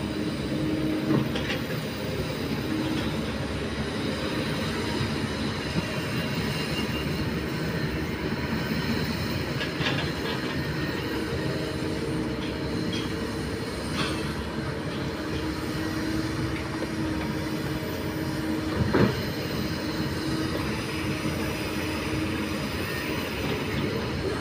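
Kobelco SK200 excavator's diesel engine running steadily as it digs and swings, with a sustained tone over the engine noise and a few sharp knocks, the loudest about 19 seconds in.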